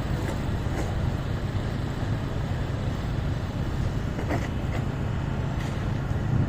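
Steady low rumble of idling vehicle engines, with a few faint clicks about four to five and a half seconds in.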